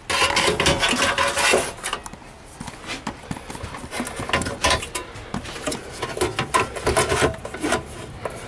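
A sheet-metal converter box being handled and slid into a metal compartment: irregular clanks, knocks and scraping of metal on metal.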